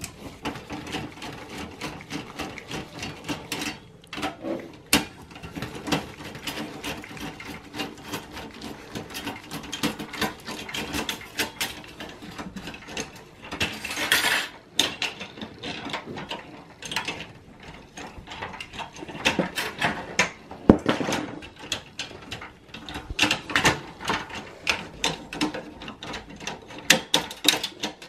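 Irregular clicks, knocks and rattles of a Phillips screwdriver working at screws and the blue plastic expansion-card retention bracket inside a computer's steel tower case, with a short scrape about halfway through.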